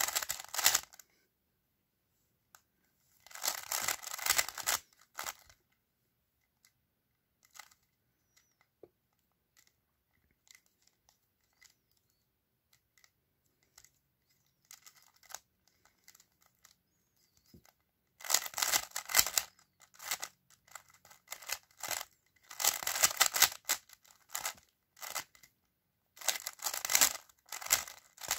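Stickerless 3x3 speed cube turned fast by hand: bursts of rapid plastic clicking and clacking as the layers snap through PLL algorithms. There are several bursts, each a second or two long, separated by pauses, with a long, nearly quiet stretch in the middle.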